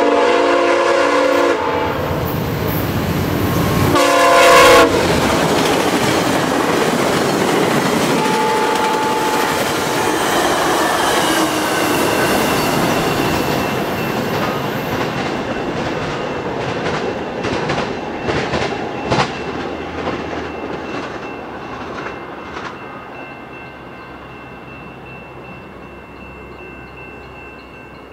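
VIA Rail passenger train led by GE P42DC locomotive 919 sounding its horn in two blasts, a longer one at the start and a shorter, louder one about four seconds in. The train then runs through at about 63 mph with a steady roar from the passing cars and wheels clicking over rail joints, fading as it moves away.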